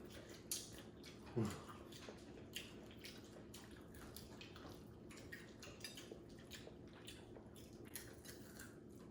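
Faint eating sounds at a meal: scattered soft clicks and smacks of chewing and utensils, with one short falling sound about a second and a half in.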